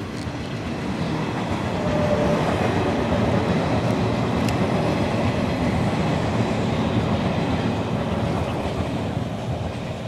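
A train passing: a steady rumble that swells over the first couple of seconds, holds, and fades near the end.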